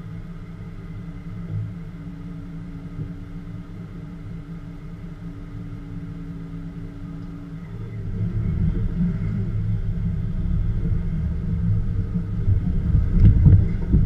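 Vehicle running with a steady low rumble, growing clearly louder about eight seconds in.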